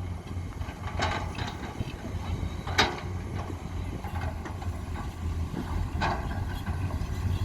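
Komatsu PC210 hydraulic excavator's diesel engine running steadily while it digs earth and loads a dump truck, with a few sharp knocks: one about a second in, the loudest near three seconds, another about six seconds in.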